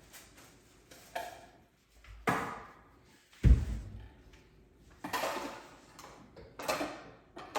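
Kitchen clatter: a string of about six knocks and clunks a second or so apart, the heaviest a deep thump about three and a half seconds in.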